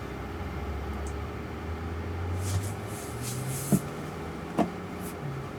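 Cabin noise inside a Jaguar I-Pace electric car: a low hum that steps up a little in pitch about halfway through, and two sharp clicks a little under a second apart.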